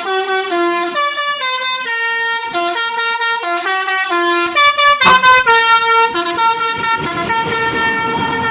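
Telolet basuri musical bus horn playing a quick tune of stepped notes, about three a second, ending on one long held note near the end. Noise builds under the horn in the second half.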